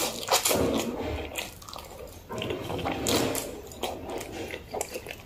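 A person slurping a mouthful of black bean sauce noodles and chewing, wet mouth sounds picked up close by a clip-on microphone. There are two longer slurping stretches, one starting just after the beginning and one about halfway through, with small wet clicks between.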